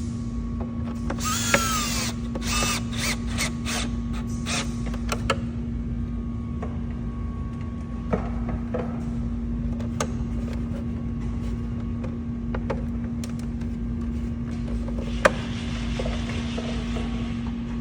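Plastic mirror and camera housing parts being worked into place by hand, with creaks and squeaks in the first few seconds and sharp clicks scattered through the rest. A steady low hum runs underneath.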